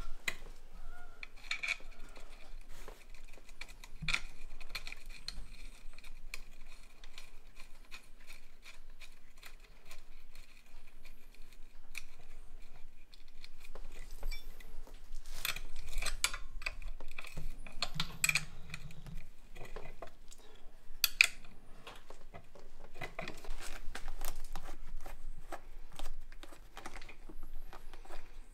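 Light metallic clicks, taps and clinks of hand tools and small parts being handled while the clutch cable is fitted and adjusted on a Kawasaki KLX110 pit bike, in short irregular bursts.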